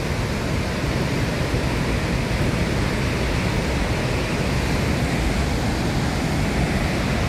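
Steady rushing roar of Victoria Falls, the Zambezi pouring over the cliff into the gorge, an even, unbroken noise.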